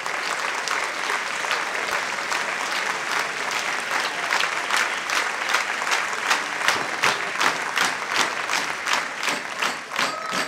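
Audience applauding after a live performance; about halfway through the clapping falls into a steady rhythm, clapping together in time.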